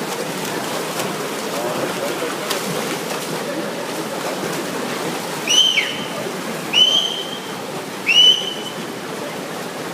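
Steady crowd din echoing in an indoor pool hall during a swimming race, with three loud, shrill whistles a little over a second apart about halfway through, each sweeping up in pitch and then holding.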